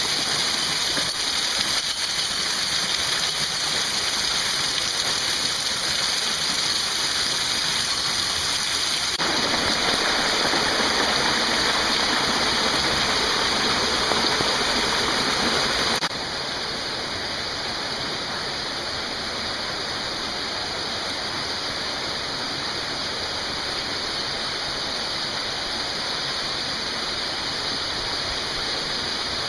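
Steady rush of a mountain stream and small waterfalls in a narrow canyon. It grows a little stronger about a third of the way in, then drops suddenly to a quieter, even rush just past halfway.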